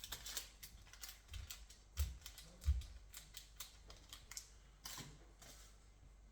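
Irregular light clicks and taps of a felt pen and small craft pieces being handled on a tabletop, with a few soft thumps about a second and a half, two and nearly three seconds in.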